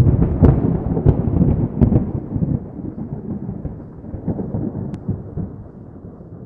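Intro sound effect of a thunder-like rumble, loud from its sudden start with sharp cracks in the first two seconds, then slowly fading away.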